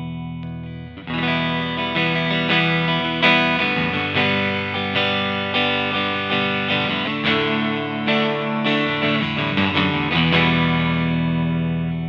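Harley Benton TE-52 Telecaster-style electric guitar played through an amplifier: a held chord rings and fades, then about a second in it moves into a steady run of picked chords and single notes.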